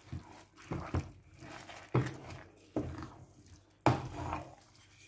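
Spoon stirring wet rice in coconut-milk sauce in a stainless steel pot: squelching, scraping strokes, about one a second.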